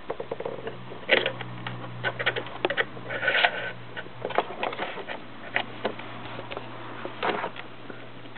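Hands handling hard plastic jet unit parts: irregular clicks, taps and brief rubs over a steady low hum.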